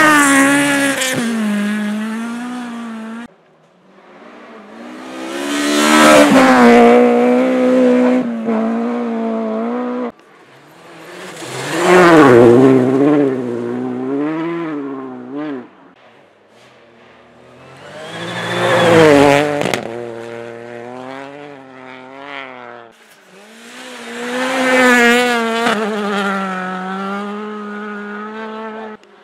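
Rally cars passing one at a time on a snowy gravel stage, about five in a row, each engine revving hard with its pitch rising and falling through the gears as the car sweeps past. The sound cuts off abruptly between several of the passes.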